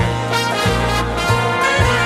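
Big band swing music: a brass section of trumpets and trombones playing full chords over a bass line that steps from note to note.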